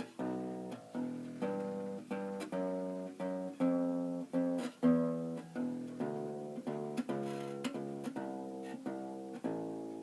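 Fender Kingman acoustic bass guitar, fitted with a ToneBar bridge in place of bridge pins, played as a melodic line of single plucked notes, about two a second, each ringing briefly before the next.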